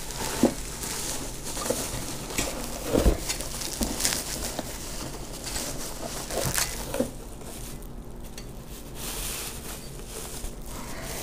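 Bubble wrap and plastic packaging crinkling and rustling, with scattered small clicks, as a stainless steel turbo outlet pipe is unwrapped and pulled out of a cardboard shipping box. The rustling is busiest for the first seven seconds or so, then dies down.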